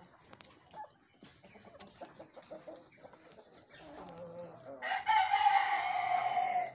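Light Brahma rooster crowing once near the end: a single loud call about two seconds long, its pitch falling slightly. Low, soft clucking comes before it.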